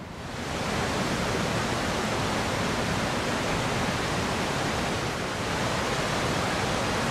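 Glacial meltwater rushing steadily, a loud even hiss of falling and running water that fades in within the first second.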